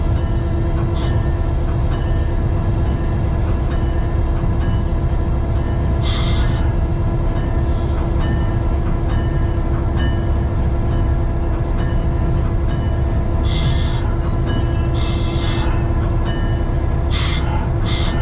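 EMD 567 prime mover of an F7 diesel locomotive, a 16-cylinder two-stroke diesel, running steadily with a deep rumble, heard from inside the cab. Several short sharp noises stand out, one about six seconds in and a cluster near the end.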